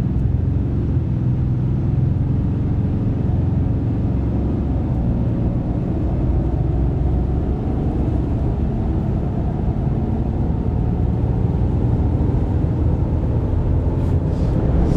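RAM 2500 AEV Prospector XL's turbo-diesel engine at full acceleration from a standstill to highway speed, heard inside the cab with road and tyre noise building. The truck is on 40-inch tires with stock gearing and takes off well.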